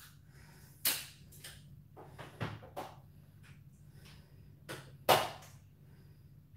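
A man breathing hard after a fast exercise set: a handful of short, sharp breaths, the loudest about five seconds in, over a faint steady low hum.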